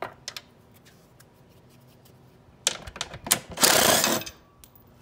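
Cordless power ratchet with an 8 mm socket backing a bolt out of an outboard motor's midsection: a couple of clicks at the start, then the tool runs in short bursts and one longer run about three and a half seconds in.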